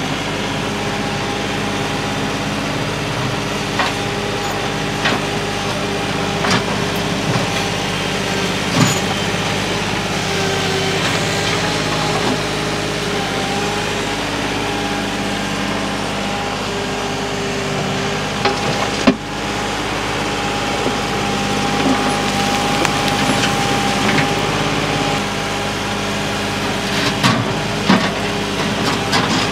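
Kioti compact tractor's diesel engine running steadily while its front loader backfills a post hole, with scattered sharp knocks from the loader bucket and falling dirt and rocks.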